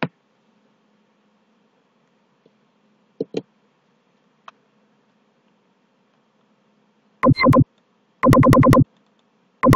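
Electronic synthesized tones: two short blips about three seconds in, then several loud bursts of steady electronic tone in the last few seconds, the longest one pulsing rapidly. A faint low hum sits underneath.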